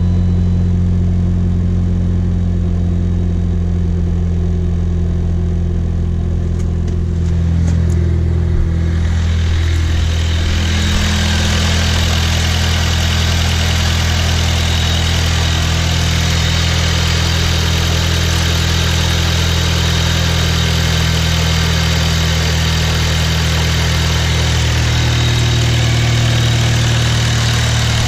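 Dodge Caliber SRT-4's turbocharged 2.4-litre four-cylinder, freshly rebuilt with sleeves, idling steadily while it warms up after a fresh start; the owner fears a rod knock in it. A steady hiss joins the engine about a third of the way through.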